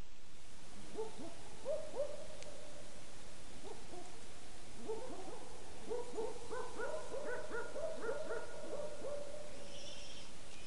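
A run of short hooting calls, scattered at first, then coming quickly one after another for several seconds from about halfway. A steady hiss runs underneath, and a few faint high chirps come near the end.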